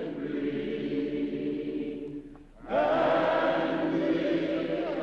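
A congregation singing a slow song together in long, held notes. One phrase dies away about two and a half seconds in, and a louder one begins right after.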